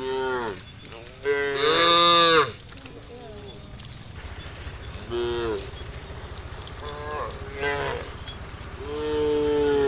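Cattle mooing: about six moos from more than one animal, the loudest and longest about a second and a half in, the last drawn out near the end.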